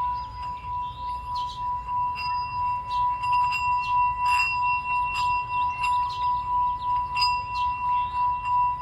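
Singing bowl rimmed with a wooden striker, holding one steady ringing tone with fainter higher overtones. Its loudness wobbles in a regular pulse.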